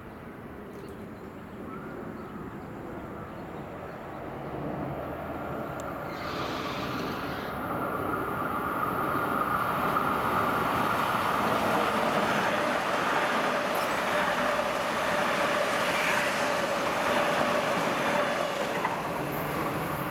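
Metro-North M7 electric multiple-unit train approaching and passing close by. It grows louder over the first eight seconds or so and then runs loud and steady, with rail rumble and a steady high whine from the train.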